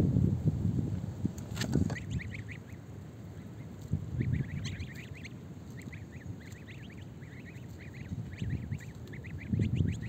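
Domestic goslings peeping: many short, high peeps in quick succession from about two seconds in, after a few knocks in the first two seconds.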